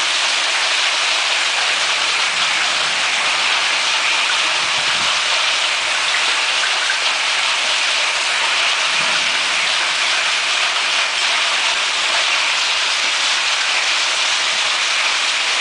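Hailstorm: golf-ball-sized hail and rain pelting down in a steady, dense hiss with no letup.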